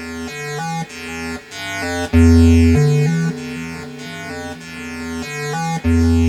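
YM2149F sound chip synth playing a sequenced chiptune line: stepping square-wave notes over a bass line, the notes swelling in loudness, with heavier bass notes about two seconds in and near the end.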